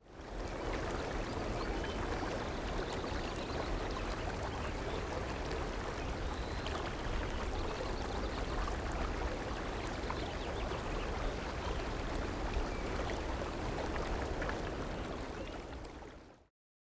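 Steady rush of fast-flowing river water, fading in at the start and fading out near the end.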